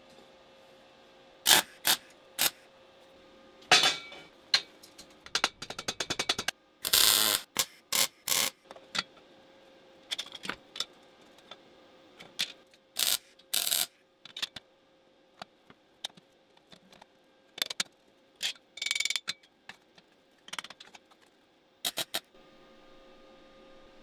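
Hand tools working metal parts: scattered sharp clicks and knocks, with a quick run of rapid ratchet-like clicks about five to six seconds in and a few short scraping bursts, over a faint steady hum.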